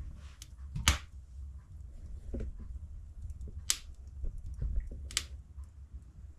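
Birch logs crackling in a wood-burning fireplace: scattered sharp pops, with three louder ones about a second in, past the middle and just after five seconds, over a steady low rumble.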